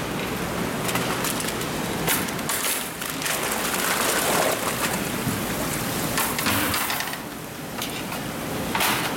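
Water splashing repeatedly in a fish tank as a plastic crate of live red sea bream is tipped in and the fish are released, over a steady rushing hiss of aerated, running water.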